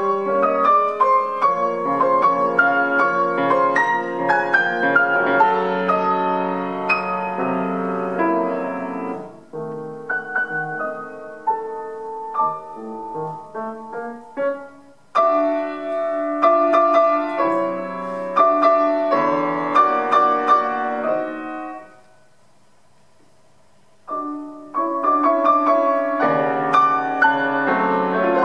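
Prepared grand piano playing dense chords and runs. About ten seconds in it thins to quieter, sparser notes, then returns to full playing. Near the end it stops for about two seconds and starts again.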